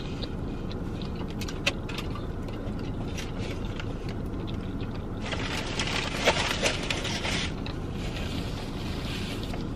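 Chewing and small mouth clicks over a low steady car-cabin hum. About five seconds in, a couple of seconds of crinkly rustling as the foil-lined takeout tray and a paper napkin are handled.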